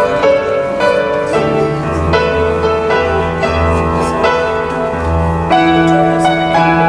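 Instrumental piano music of chords and a low bass line, with notes changing about once a second, played as offertory music during a church service.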